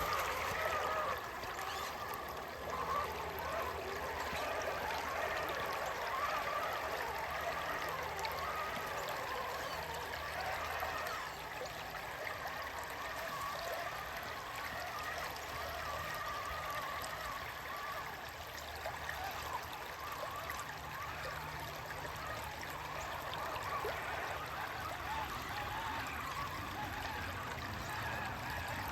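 Creek water flowing steadily, a continuous babbling trickle.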